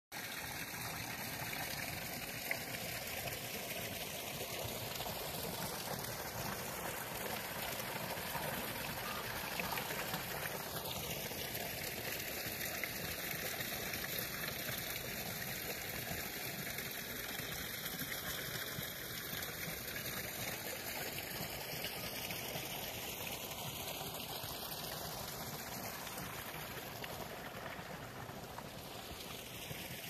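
Water fountain splashing and trickling steadily.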